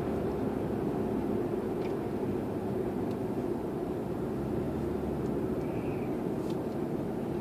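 Steady in-cabin drone of a 2006 Lexus IS 250 all-wheel-drive car being driven, engine and tyre noise on a lightly snow-covered road, with a few faint ticks.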